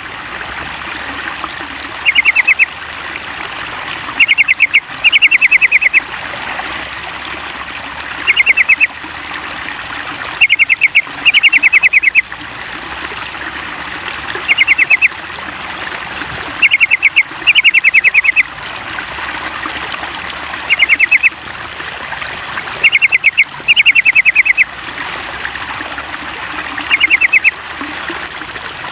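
Yellow-vented bulbul (trucukan) song: loud bursts of rapid chattering notes, often a short burst followed by a longer one, repeating every couple of seconds in a regular loop, over a steady trickling-water background. It is a lure recording meant to prompt caged trucukan to sing.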